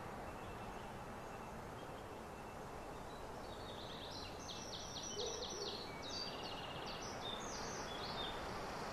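Steady outdoor background hiss, with high, rapid bird chirps and short trills starting about three and a half seconds in.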